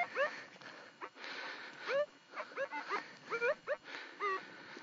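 Minelab E-Trac metal detector, set to conductivity tones, giving a string of short rising beeps as handfuls of dug soil are passed over the coil: the target is in the loose soil from the hole. Soil and stones scrape against the hand and coil between the beeps.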